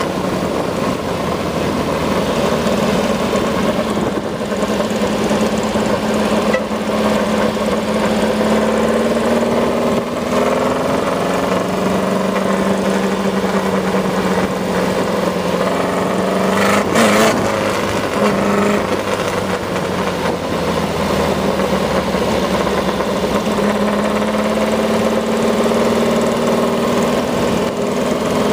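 Rail buggy's engine running under way, still being broken in, its pitch drifting slowly up and down with speed changes. There is one short thump about seventeen seconds in.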